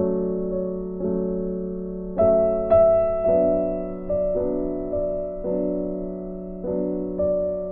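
Instrumental background music: soft, slow piano chords, each struck and left to fade, about one a second.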